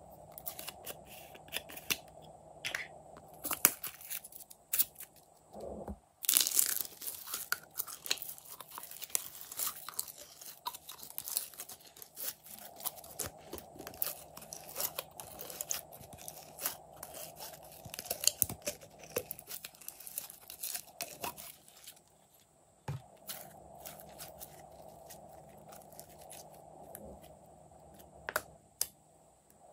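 Green glitter slime being squeezed out of a bear-shaped plastic bottle, giving off dense sticky clicks and crackles that start suddenly and loudly about six seconds in. Near the end the sounds thin out to a few isolated clicks as fingers press the slime in the tray.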